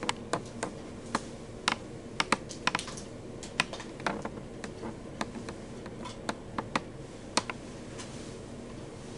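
A run of about twenty sharp, irregular clicks, some in quick pairs, over a steady low hum.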